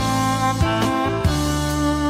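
Background instrumental music: a melody of held notes that changes about every half second, over a steady bass.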